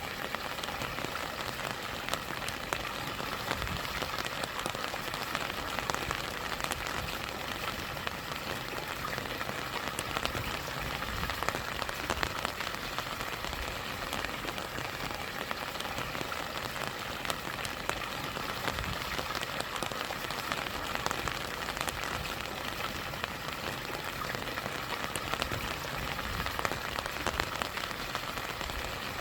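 Steady rain falling over rushing stream water and a small waterfall: an even wash of noise dotted with many small drop ticks.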